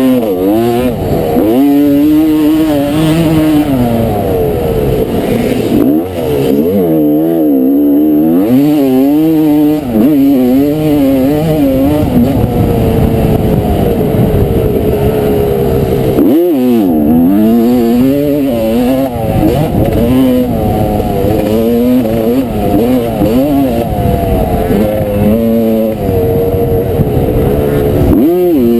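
1989 Honda CR250R's single-cylinder two-stroke engine ridden hard on board around a dirt motocross track, revving up and down: the pitch climbs under throttle and drops sharply several times as the throttle is chopped.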